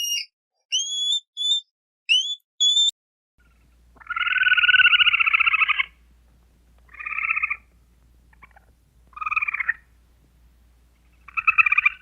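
Animal calls: four short rising whistles in quick succession, then after a pause a series of trilled, pulsing calls, the first lasting about two seconds and the next three shorter.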